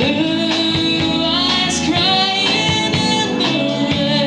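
A woman singing lead over a live band's electric bass and guitar, with long held notes in a slow country ballad.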